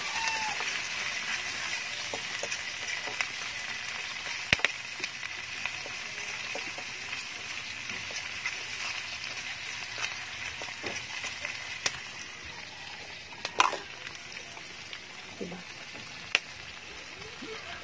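Food frying in a pan as it is stirred: a steady sizzle that slowly dies down, with a few sharp clicks along the way.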